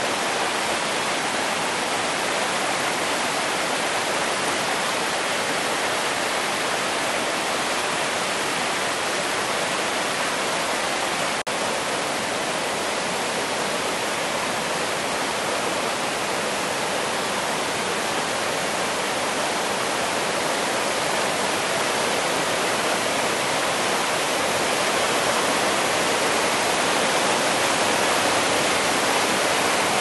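Mountain stream rushing over rocks and through rapids: a steady, dense rush of water, broken once by a momentary dip about eleven seconds in and growing a little louder near the end.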